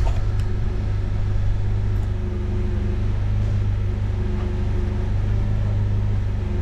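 Forklift engine idling steadily with a low, even hum, while the saildrive hangs from it, with a few light clicks over the top.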